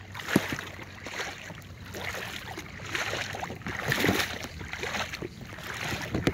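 Water sloshing and splashing unevenly as legs wade through knee-deep water, with a few sharper splashes.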